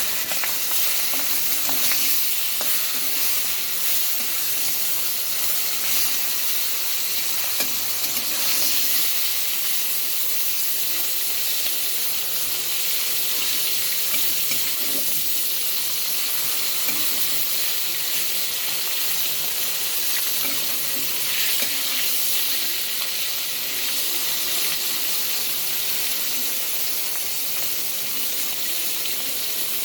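Hilsa fish head frying in hot oil with tempered spices, sizzling steadily in the pan.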